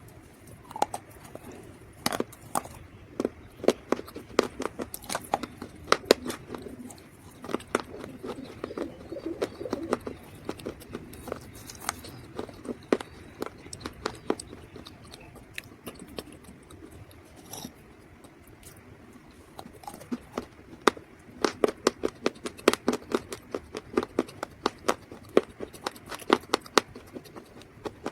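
Dried mud crunching and crackling in rapid sharp snaps, in two busy spells with a quieter lull in the middle.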